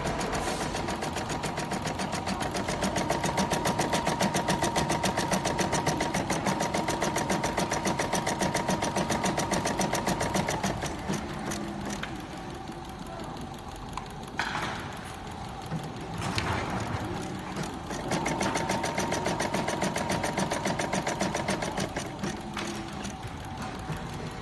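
DT9090 embroidery and sewing machine stitching, running at a fast, even rhythm with a steady whine. Around the middle it goes quieter for several seconds, with a couple of short noises, then runs again near the end.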